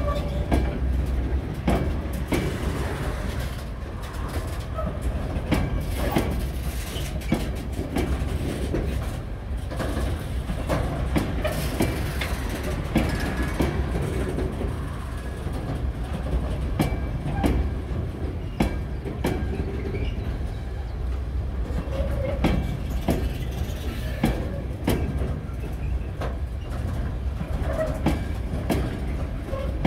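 Freight train of covered hopper wagons rolling past close by: a steady rumble of wheels on rail, broken by an uneven run of sharp clicks and knocks as the wheels pass over rail joints.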